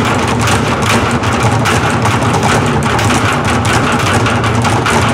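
Percussion ensemble drumming with sticks on metal oil drums and plastic barrels: a loud, dense, rapid run of strikes.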